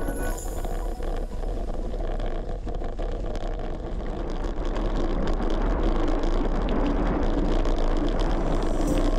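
Wind buffeting a camera microphone without wind suppression on a moving bicycle, with tyre rolling noise; the rush grows louder about five seconds in.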